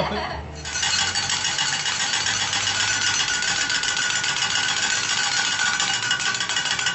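Two steel spatulas clattering rapidly against a flat-top teppanyaki griddle as the food is chopped and scraped at high speed: a dense, fast metallic rattle with a faint ringing, starting about half a second in and cutting off at the end.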